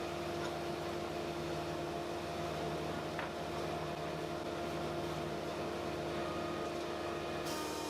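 A workshop machine's motor running steadily with an even hum, with no cutting or load change heard.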